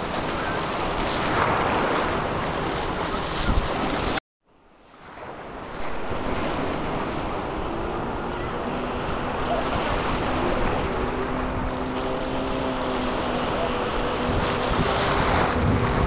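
Sea waves washing in the shallows, with wind buffeting the microphone. The sound cuts out abruptly about four seconds in and fades back up over the next second or so.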